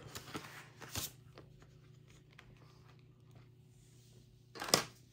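Faint scratching and light taps of writing on paper, as when marking a score on a game sheet. Near the end comes one short, louder noise.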